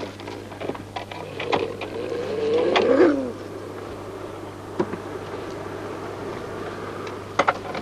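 Chained Greenland sled dogs whining, one wavering whine swelling about two to three seconds in, with a few sharp clicks scattered through.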